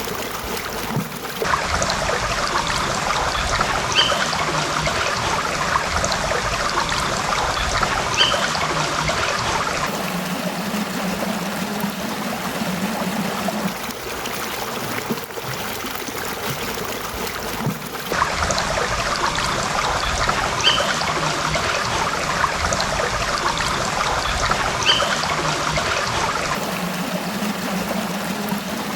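A stream running and trickling steadily. The water sound changes abruptly a few times, and there are a few faint short high chirps.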